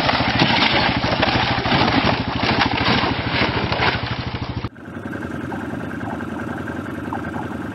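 Quad (ATV) engines. A loud, rough engine with a fast, even pulse cuts off suddenly about four and a half seconds in, followed by a quieter, steady quad engine running.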